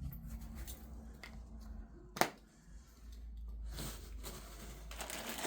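Quiet handling of packaging and small parts while unboxing, soft rustling and scraping with one sharp click about two seconds in, over a low steady hum.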